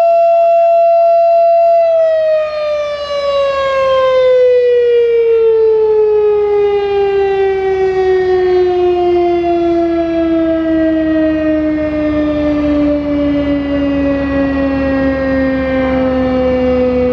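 Federal Signal Thunderbeam outdoor warning siren with a broken reflector disc, holding a steady tone that begins to wind down about two seconds in and falls slowly in pitch as the siren coasts down at the end of its alert signal.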